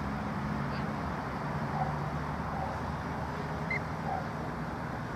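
Steady outdoor background noise with a low hum that fades out about two seconds in, and a few faint short chirps on top.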